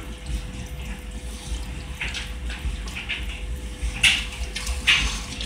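Bamboo spoon stirring and scraping through a deep pan of saucy fideo noodles, making short, irregular wet swishes that come from about two seconds in.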